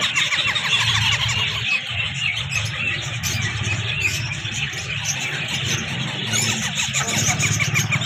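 A brood of green ringneck (rose-ringed) parakeet chicks, about two and a half weeks old, making rapid, repeated raspy squeaking begging calls, over a steady low hum.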